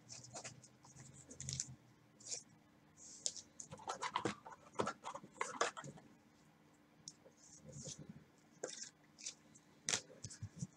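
Faint, scattered rustling, scratching and clicking of trading cards being handled by gloved hands, busiest around the middle and with a sharper click near the end.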